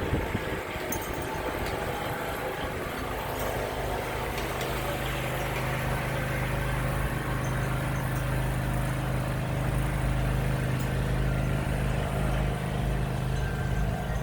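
Lawnmower engine running steadily; its low hum becomes firmer and slightly louder about four seconds in.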